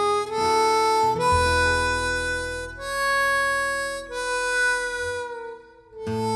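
Background music: a slow melody of long held notes over a low accompaniment. It fades briefly near the end and then comes back in.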